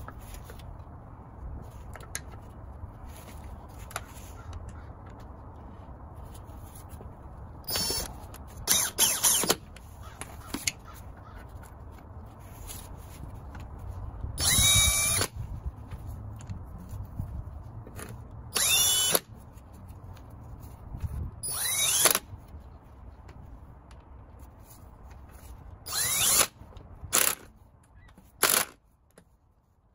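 Cordless impact wrench running in several short bursts, its motor pitch gliding up and down, as the wheel's lug bolts are run in and tightened.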